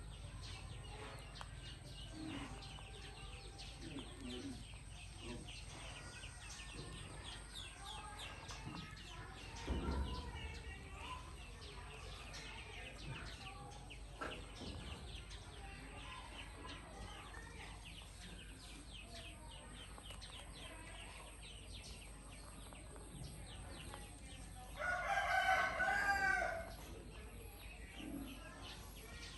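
A rooster crows once near the end, a single call of about a second and a half, the loudest sound here. Throughout, faint rapid small clicks and ticks, with a low thump about a third of the way in.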